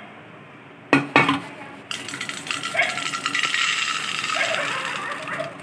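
Whole masoor lentils pouring from a bowl into a steel pot, a steady rattling patter of hard grains on metal, after two sharp knocks about a second in.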